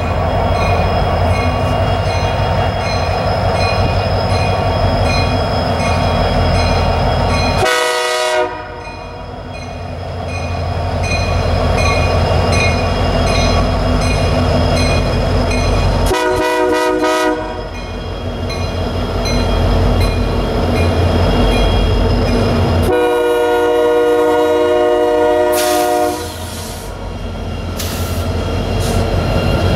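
Union Pacific SD70M EMD diesel locomotives passing with a freight train: engines running and wheels rolling, with a steady rumble. The lead unit sounds its multi-note air horn: a short blast about eight seconds in, another of about a second near sixteen seconds, and a long blast of about three seconds starting around twenty-three seconds.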